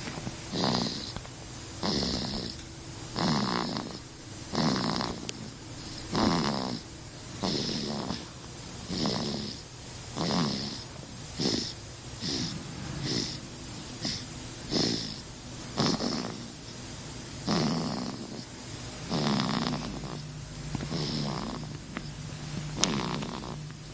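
A baby snoring in short, regular breaths, about one snore every second and a half.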